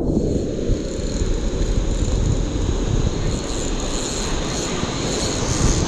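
Spinning fishing reel being cranked steadily, its gears and rotor giving a steady high whirring whine while winding in line on a hooked fish. Underneath is a low rumble of wind and surf on the microphone.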